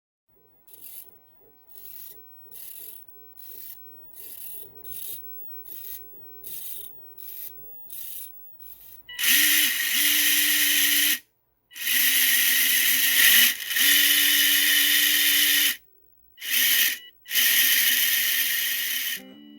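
About a dozen short, evenly paced rubbing strokes, like hand sanding or filing on the model hull. From about nine seconds in, a small electric motor runs at a steady pitch with a loud hiss, in four stretches separated by short stops.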